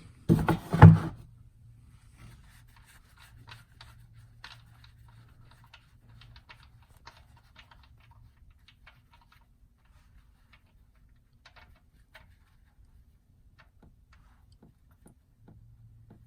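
A wrench working a car's 15 mm oil drain plug loose, with a short loud rasping burst in the first second. Then come faint scattered clicks and taps as the plug is turned out, over a faint low hum.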